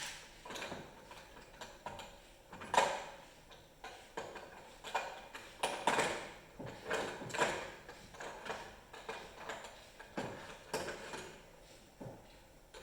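Irregular metal clanks and knocks of hand tools and engine parts being handled during the teardown of a Polaris 680 snowmobile engine, about a dozen separate hits with short pauses between them.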